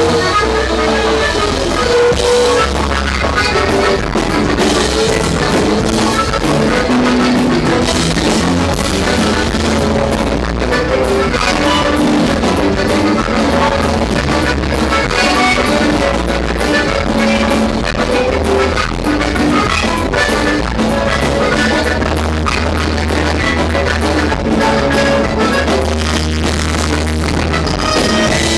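Live norteño band playing: button accordion, guitars, electric bass and drum kit in a steady dance rhythm.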